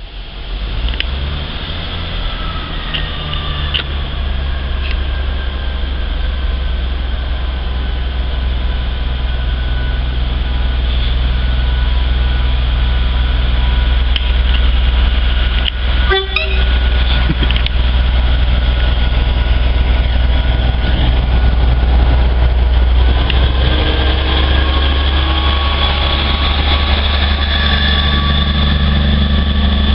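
British Rail Class 158 diesel multiple unit's underfloor diesel engines running with a steady low hum, growing gradually louder as the unit moves along the platform.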